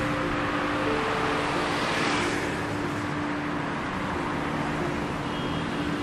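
Steady road traffic: motorbikes and cars driving past on a city roadway, engines and tyres running continuously.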